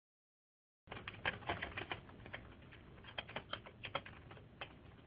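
Typing on a computer keyboard: a quick, irregular run of keystrokes that starts abruptly about a second in and thins out near the end, over a steady low hum, heard through a narrow-band webinar microphone.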